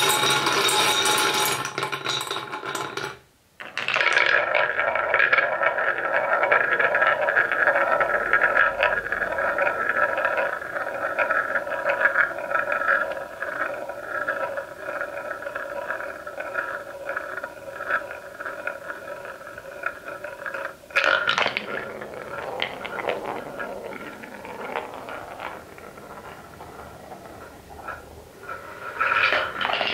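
Wooden balls rolling round a wooden funnel bowl: a steady rolling hum with many small clicks as they knock against the wood and each other. About 21 s in it changes to a quieter, less even rolling as a single wooden ball runs along curved wooden track.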